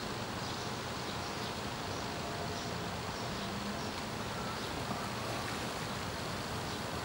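Steady outdoor background noise: an even hiss and low rumble, with no distinct events.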